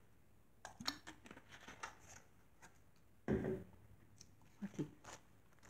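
Faint rustling and light handling of paper and a clear plastic bag of die-cut paper butterflies on a table, with small clicks and a soft thump a little over three seconds in.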